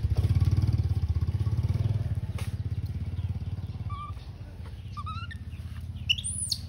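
A motorcycle engine running with a low, even putter, loudest at the start and slowly fading. Short high chirping calls come in about four seconds in and again near the end.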